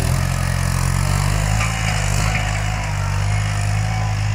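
Farm tractor's diesel engine running steadily under load as its front dozer blade pushes through dry soil.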